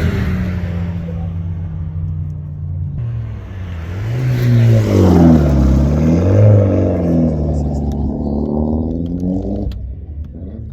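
Race car engines after a speed run: a steady engine drone as a car rolls off, then a car's engine revving down and up twice over several seconds, with a few sharp crackles near the end before it cuts off.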